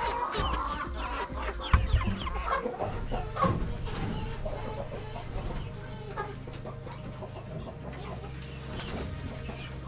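Chickens clucking, busiest in the first few seconds, with a single knock near two seconds in. A low steady hum comes in about three seconds in.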